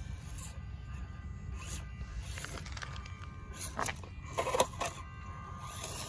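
FMS Atlas 6x6 RC crawler's small electric motor and gears whining in short stop-start bursts as it climbs over rocks, the jerky low-speed throttle of its stock speed controller. Its tires and chassis scrape and knock on stone, loudest about four and a half seconds in.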